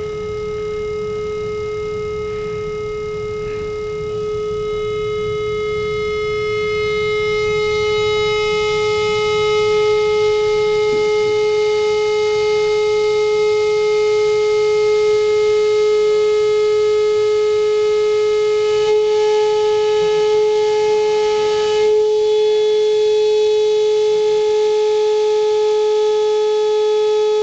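A single loud, steady pure tone from a loudspeaker, switched on with a click at the start and tuned to a wine glass's resonance frequency to set the glass vibrating. It grows louder over the first ten seconds or so, then holds steady.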